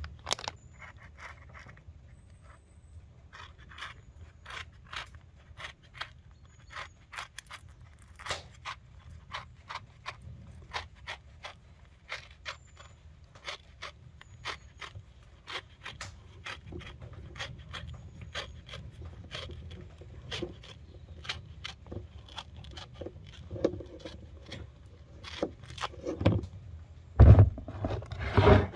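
A grapefruit being peeled by hand: irregular small snaps and scrapes as the thick rind is torn away, with a few louder knocks on the table near the end.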